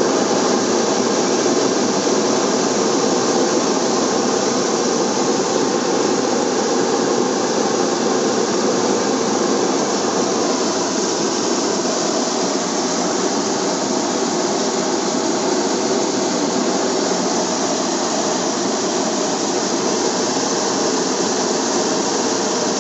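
Hot air balloon's propane burner firing in one long continuous burn: a loud, steady blast of noise that starts and cuts off abruptly.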